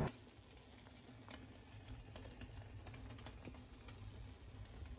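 Pot of octopus simmering in its cooking liquid, faint: scattered small bubbling pops over a low steady hum.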